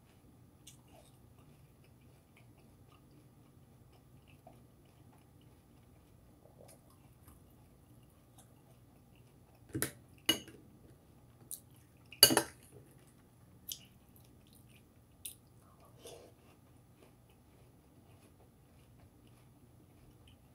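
Metal spoon clinking against a cereal bowl, a cluster of about seven sharp clinks about halfway through, the loudest near the middle. Faint chewing of crunchy cereal in the quieter stretches either side.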